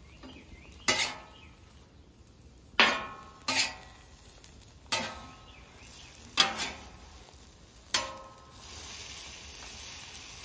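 Metal spatula clacking and scraping against the steel plate of a Camp Chef flat top griddle while folding an omelet: six sharp clanks, each with a short metallic ring, unevenly spaced. A faint steady hiss comes in near the end.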